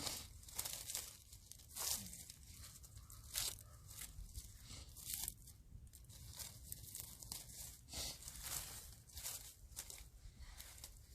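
Rake scraping and crunching through dry leaves and debris on the ground, in a run of irregular strokes about one every half second to a second and a half.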